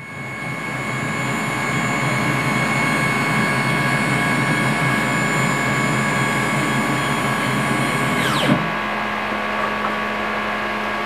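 CNC milling machine running with a steady whine made of several high tones. About eight and a half seconds in the whine falls quickly in pitch and stops as the spindle spins down, leaving a steady low hum.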